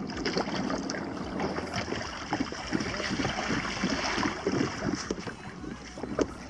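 Water lapping and slapping irregularly against the hull of a Hobie Adventure Island sailing trimaran under way, with wind on the microphone.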